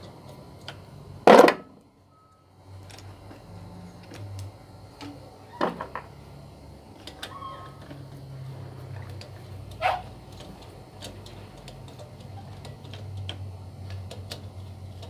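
Clicks and knocks of a screwdriver and metal parts being handled at an electric pump motor, with one sharp knock about a second in and two smaller ones later, over a faint low hum.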